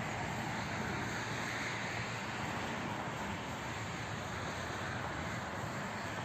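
A passing aircraft overhead: a steady, rushing engine drone that slowly fades.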